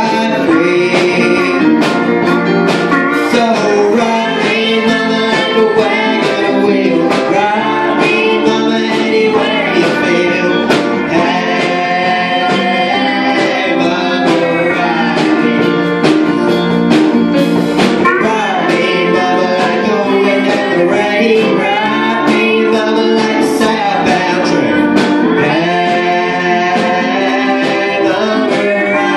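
Live band playing a country-rock song: a young male voice sings over electric guitars and drums.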